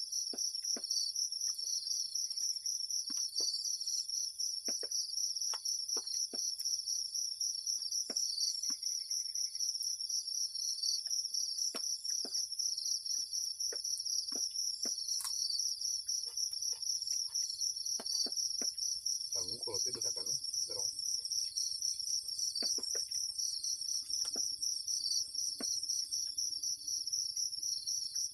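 Insects chirring steadily in a dense, high-pitched chorus, with scattered faint ticks and a brief low, muffled sound about twenty seconds in.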